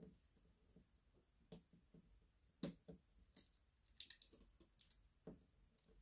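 Faint, scattered clicks and scratches as leftover protective plastic film is picked off an acrylic diamond-painting canvas.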